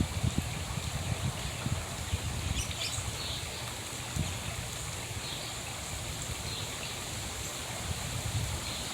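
Outdoor ambience: a steady low rumbling noise with irregular low thumps, and a few faint, high, short bird chirps about two and a half to three and a half seconds in, with weaker ones later.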